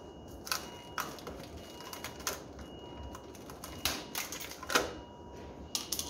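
Irregular clicks and clatters of hand tools and fasteners against the refrigerator's metal and plastic panels, about a dozen sharp clicks with the loudest a little before the end. A faint steady high tone runs underneath.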